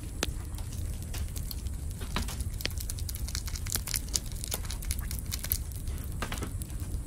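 Irregular small crackles and pops from a charcoal grill, with instant noodles simmering in an aluminium mess tin on the grate, over a low steady rumble.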